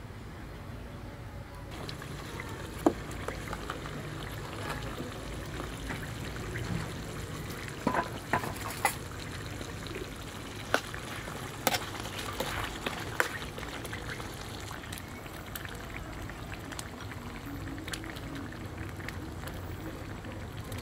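Chicken curry simmering and bubbling in a steel wok, with a metal ladle stirring it and clinking against the pan several times in the middle stretch.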